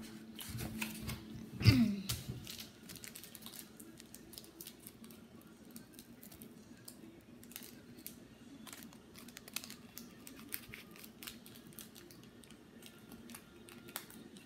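Handling noise close to the microphone: a loud bump about two seconds in, then many small irregular clicks and taps from hands working with small objects, over a faint steady hum.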